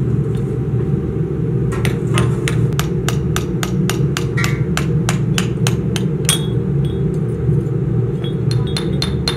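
Hand hammer striking a freshly cast cluster of cast-iron engine sleeves, knocking them off the runner: rapid ringing metallic blows about five a second, a short pause with a few single blows, then a fresh run near the end. A steady low hum lies underneath.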